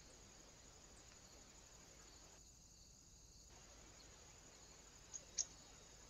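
Near silence: the trail camera's faint steady electronic hiss. A little after five seconds in come two short sharp clicks about a quarter-second apart, the second the louder.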